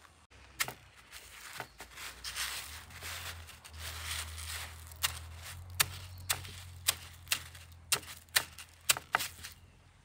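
Crushed unsweetened cornflakes crunching and rustling as a batter-coated sausage is rolled and pressed into them on an aluminium tray, with sharp crackles that come more often in the second half. A low hum runs underneath.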